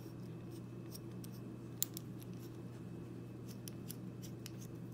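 Faint small metallic clicks and ticks as the stainless steel Karve Christopher Bradley safety razor's head is screwed onto its handle, with one sharper click about two seconds in, over a low steady hum. The threads run smoothly, with no grit or grinding.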